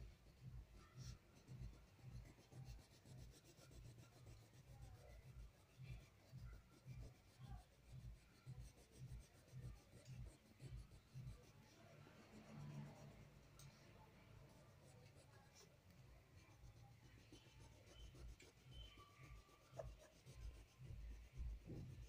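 Faint scratching of a crayon colouring in on paper, in quick, even back-and-forth strokes, a few a second.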